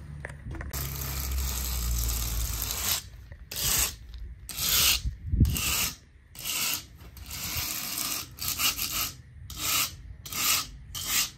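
Steel scraper blades scraping lumps off a dried microcement base coat on a concrete slab. First comes one long continuous scrape from a long-handled floor scraper, then a hand-held razor-blade scraper in short, quick strokes at about two a second. The coat has been dry only about an hour and is still soft, so the high spots scrape off easily.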